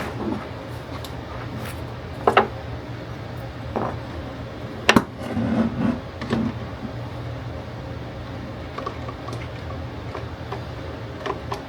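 A few scattered knocks and clunks, the loudest about five seconds in, as clamps and cauls are handled and set on a wooden glue-up, over a steady low hum.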